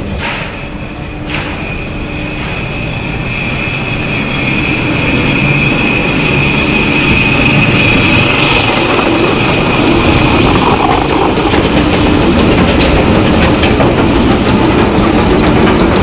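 Wing roller coaster train rolling out of the station and onto the chain lift hill: a steady rattling rumble of wheels on track and the lift mechanism, growing louder over the first several seconds, with a high whine through about the first half.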